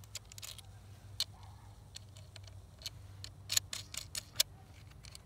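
Light clicks and taps of battery cables and their metal ring terminals being handled and fitted over the stud posts of 12-volt deep-cycle batteries. The short sharp clicks come scattered, with a quick cluster about three and a half to four and a half seconds in.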